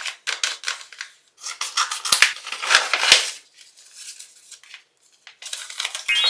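Paper crinkling and rustling in irregular bursts as a handmade paper blind bag is handled and opened. A short rising sound effect comes near the end.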